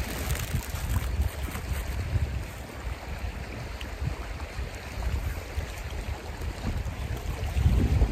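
Wind buffeting the microphone: an uneven, gusty low rumble over a steady outdoor hiss, growing stronger near the end.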